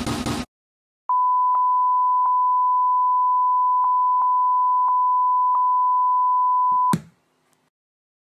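The electronic music cuts off in the first half second, then a steady test-card beep tone, the kind that goes with colour bars, sounds for about six seconds with a few faint clicks through it. It ends in a sharp click.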